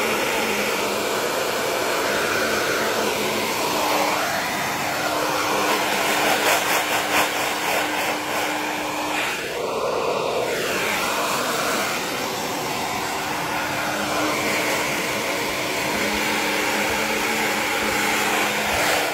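Hair dryer running steadily, blowing on a chow chow's rain-wet coat to dry it, its sound shifting briefly about halfway through.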